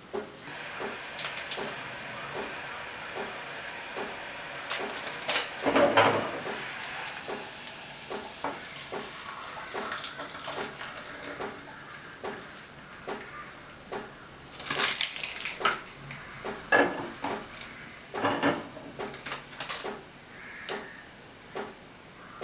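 Gas stove burner hissing under a small saucepan of heating water, with faint clicks. In the second half the pan is handled and hot water poured into a glass cup, with several sharp clinks and knocks of pan and glass.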